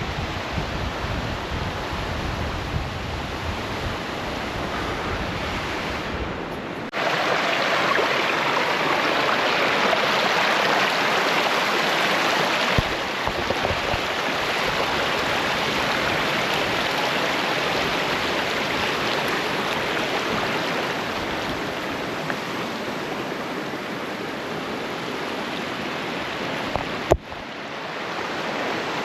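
Steady rushing water of a waterfall. For the first several seconds wind rumbles on the microphone over it; from about seven seconds in, the water's rush is louder and clearer.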